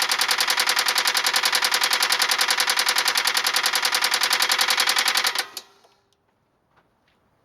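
1999 Toyota Camry Solara 2.2 SE's four-cylinder engine running with a loud, rapid, even knocking, about ten knocks a second: rod knock from a worn connecting-rod bearing. About five seconds in the engine is shut off and the knocking stops abruptly, leaving only a few faint ticks.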